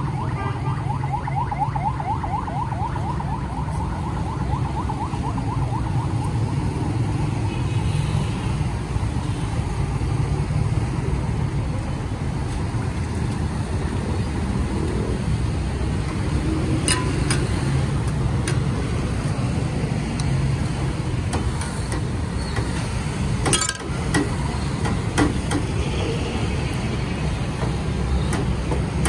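Steady street traffic and engine rumble, with the hot steel griddle sizzling under naans soaking in butter gravy. A few sharp clicks fall in the second half.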